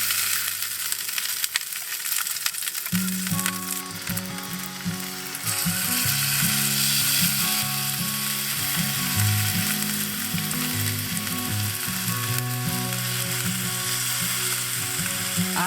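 Food sizzling and frying in a pan, a steady hiss. Background music comes in about three seconds in.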